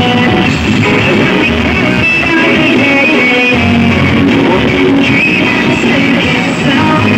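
Loud music played back through a stacked line-array sound system, heard close to the speaker cabinets.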